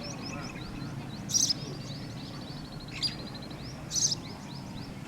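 Several birds calling: short, sharp high calls come a second or so apart, with a run of quick chirping in between, over a low steady background rumble.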